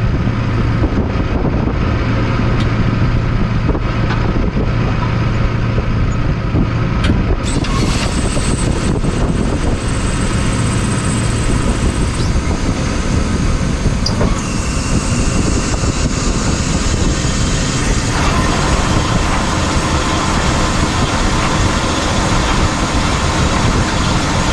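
Mahindra 85P tractor running with its PTO engaged, driving the John Deere 459e round baler after a new shear bolt was fitted; the machinery sound grows fuller and brighter about seven seconds in and again about halfway through as the baler turns.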